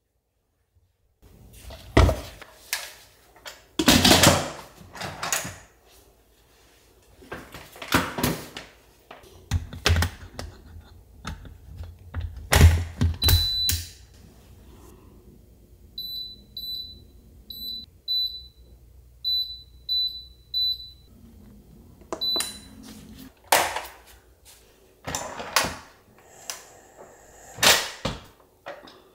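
Knocks and clatter of a Cuckoo electric pressure cooker's pot and lid being handled. In the middle the cooker's control panel beeps about ten times, short high beeps all at one pitch, as the cook time is set. More knocks follow near the end as the locking lid is turned and lifted off.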